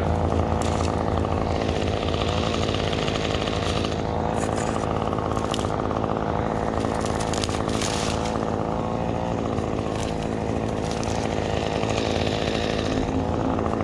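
Two-stroke chainsaw running at high revs while cutting spruce wood, its pitch dipping and recovering a few times as the chain bogs into the cut.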